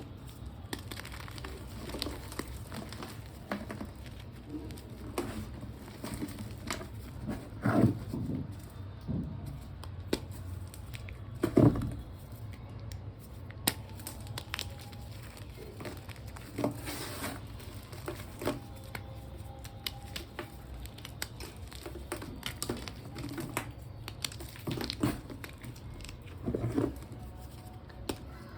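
Reformed gym chalk blocks being crushed and crumbled, giving irregular crisp crunches and crackles. Two crunches in the first half are louder than the rest.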